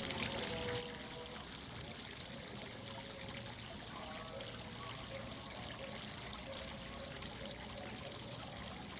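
Steady running, trickling water that drops a little in level about a second in, with faint soft held music notes underneath.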